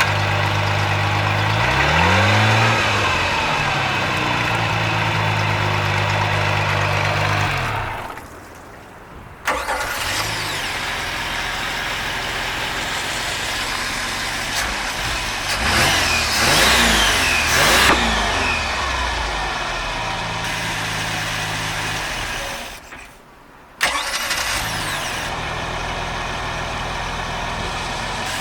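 MerCruiser 4.3 V6 sterndrive engine running, revved up and back down twice. It is shut off twice and restarts straight away each time: it is starting and running after a new starter and a carburettor rebuild.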